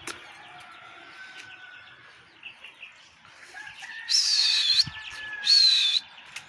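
Two loud, shrill whistles, the first about four seconds in and dipping then rising again, the second shorter, just after: a keeper whistling to send his released pigeons up. Faint bird chirping runs underneath.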